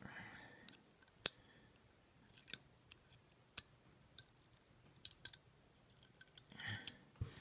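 Small sharp metallic clicks at irregular intervals, a dozen or so, some in quick pairs: the driver pins and springs of an ASSA 700 lock being worked out of their chambers with a tool as the lock is gutted.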